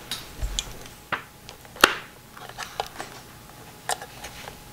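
Scattered small clicks and taps of a plastic micro-USB cord and plug being handled against a plastic mirror body while the plug is fitted to the mirror's charging port. There is a dull bump about half a second in, and the sharpest click comes just before two seconds in.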